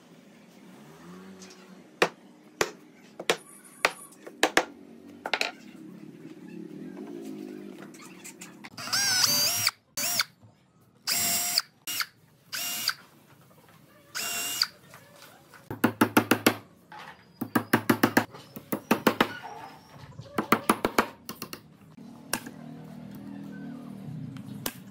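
Cordless drill running in several short bursts of about a second each, boring into a pine tabletop. Scattered knocks come before the bursts, and quick runs of sharp, closely spaced impacts follow them.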